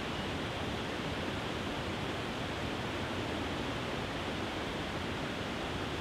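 Small waterfall pouring over rocks into a pool: a steady, even rush of water.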